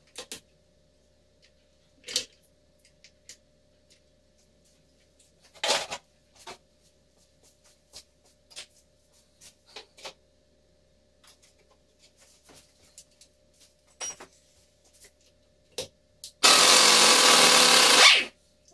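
Scattered metal clinks and knocks of tools being handled on a cast transmission housing. Near the end a pneumatic wrench on an air hose runs loudly for under two seconds, working a bolt on the housing.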